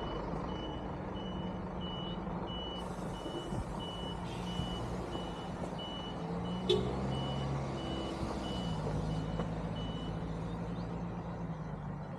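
Large vehicle reversing: its back-up alarm beeps steadily about twice a second over the running engine, and the beeping stops near the end. The engine note shifts in pitch past the middle, and there is one sharp knock just past halfway.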